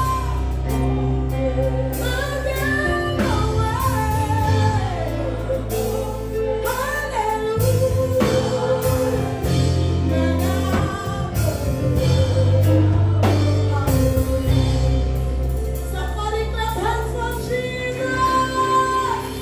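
Gospel worship song: a singing voice carrying a melody over instrumental backing with a deep bass line that changes notes every few seconds.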